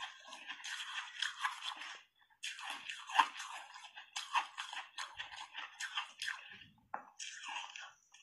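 Close-up crunching and chewing of soft shaved ice taken in big mouthfuls, a dense run of small crackles with a short break about two seconds in.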